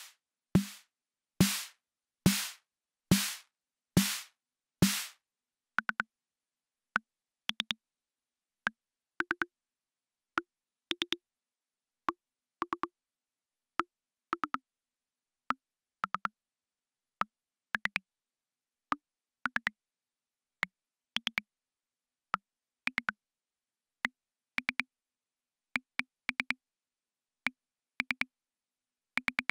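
Akai Rhythm Wolf analogue drum machine playing a sequenced pattern of raw drum voices. For about the first five seconds there is one strong hit with a long, noisy tail roughly every second. Then the sound changes to short, clicky, pitched hits in a syncopated rhythm.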